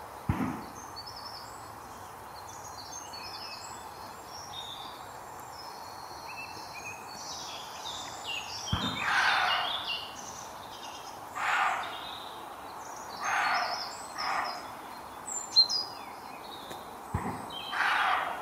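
Roe deer barking: about five harsh, short barks spaced a second or two apart, starting about halfway through, over continuous birdsong.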